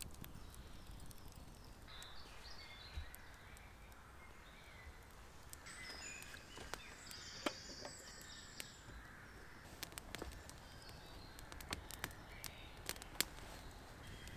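Wood campfire crackling, with sharp pops that come more often from about six seconds in, and birds calling now and then.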